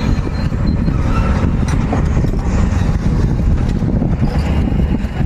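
Heavy-equipment diesel engine running loud and steady, with a deep, rough knocking rumble.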